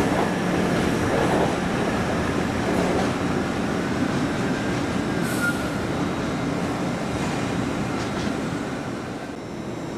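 Passenger train moving along the station tracks, a steady rumble with a faint high wheel squeal in the middle; it grows a little quieter near the end.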